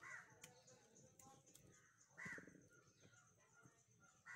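A bird calling three times, short calls about two seconds apart.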